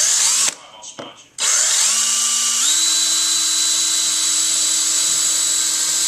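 Electric drill triggered in two short bursts that spin up, then held running: its whine climbs and then holds steady at a high pitch from about two and a half seconds in.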